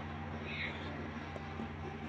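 A steady low mechanical hum, with faint clicks and eating noises from a group of cats feeding from metal trays, and a short high call about half a second in.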